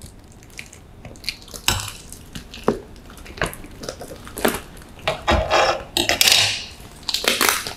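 Scissors cutting into a parcel wrapped in thick brown packing tape: irregular clicks and snips of the blades with crinkling of the tape, and a longer crinkling stretch about six seconds in.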